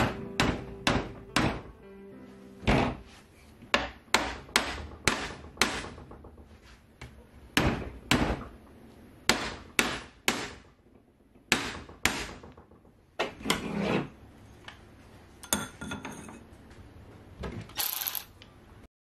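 Sharp metallic knocks of a screwdriver being hammered into the joint of a manual gearbox's alloy case to split the halves apart. The knocks come about twice a second at first, then more spaced out, with a few scattered clunks near the end.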